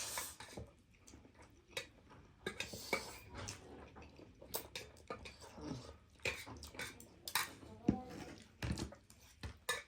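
Eating spicy instant noodles: irregular clicks of cutlery against bowls and plates, mixed with chewing.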